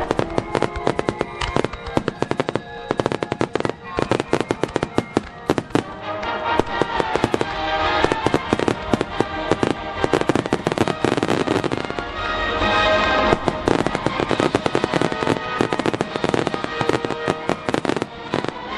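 Fireworks bursting in rapid succession, a dense stream of crackling pops and bangs, over loud music accompanying the display; the bursts thicken a little past the middle.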